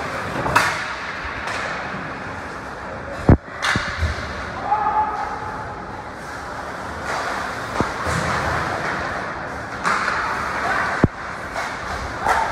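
Game noise in a large hall: shouting voices from players and onlookers, with several sharp knocks, the loudest about three seconds in and again near the end.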